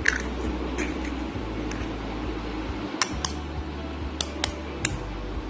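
Eggs knocked sharply against the rim of a bowl to crack them: a click at the start, a pair of knocks about three seconds in and three more just after four seconds, over a steady low hum.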